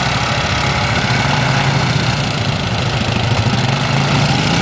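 Quad bike (ATV) engines running at a fairly steady pitch.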